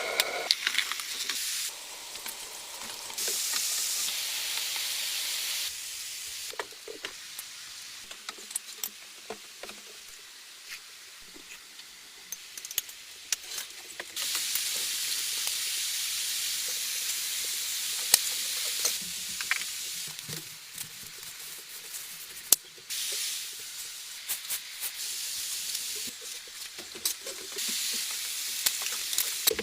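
A sizzling hiss in several stretches that start and stop abruptly, with scattered clicks and crackles between them.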